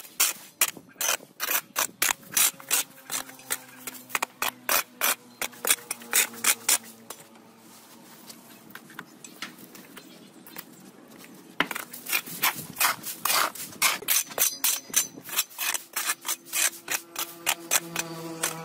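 A hand tool scraping and striking the ground in quick repeated strokes, about two or three a second, as weeds and debris are cleared. The strokes stop for a few seconds around the middle, then resume.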